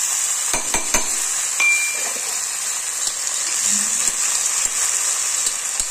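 Freshly added chopped tomato sizzling in hot mustard oil in an iron wok, a steady frying hiss. A metal spatula stirs it, with a few sharp clicks against the wok.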